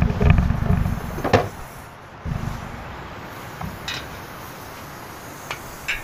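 Wind buffeting the microphone, a heavy low rumble for about the first second and again briefly after two seconds, with a sharp click just after the first gust and a few faint clicks later.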